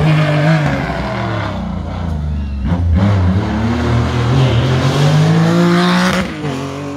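Porsche 911 rally car's flat-six engine working through a tight hairpin: the revs drop as it slows for the bend, then climb steadily as it accelerates out, with a sudden change in note near the end.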